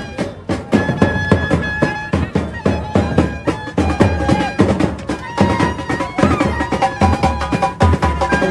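Uniformed wedding band playing: drums beaten in a fast, steady beat under held notes from wind instruments.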